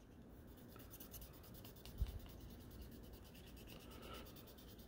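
Faint, soft rubbing of 6000-grit wet sandpaper worked by hand over the 2K clear coat of a plastic model car body, with a soft bump about two seconds in.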